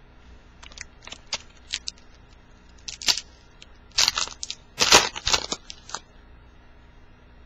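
Plastic wrapper of a 2010 Bowman baseball card pack being torn open and crinkled by hand: a run of crackles, loudest in a few bursts from about three to five seconds in.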